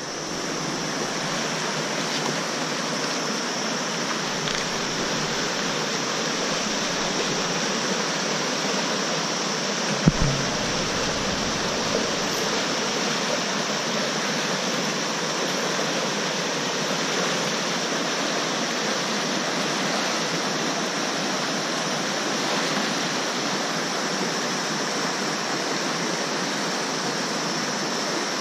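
Steady rush of a fast-flowing, rocky mountain river, with one brief low thump about ten seconds in.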